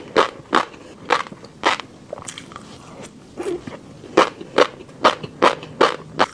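Close-miked chewing of fish roe: a run of crisp popping crunches about two a second, pausing for about a second and a half midway.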